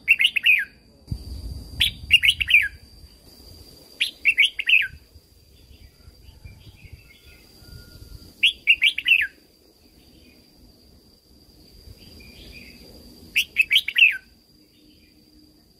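Red-whiskered bulbul singing: five short, quick warbled phrases spaced a few seconds apart, over a faint steady high-pitched tone.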